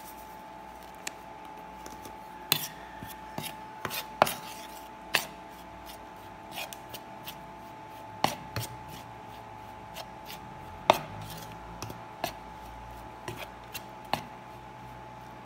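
Metal fork clinking and scraping against a ceramic plate while mixing beaten egg into flour for a breading mix: irregular sharp taps, with a soft rub of the fork through the flour between them.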